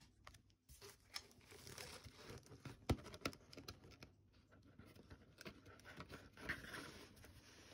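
Cardboard box being handled by hand: flaps rustling and scraping and the inner box sliding against the carton, with a couple of sharp knocks about three seconds in.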